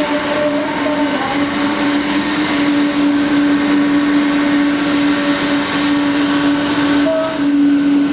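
Boeing 777-200's twin jet engines running at taxi power as the airliner rolls past, a steady hum with a constant whine above it.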